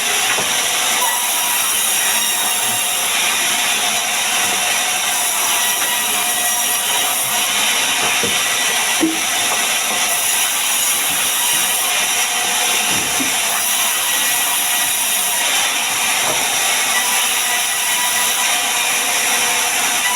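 A power tool running steadily on wood, a loud, even hiss that does not let up.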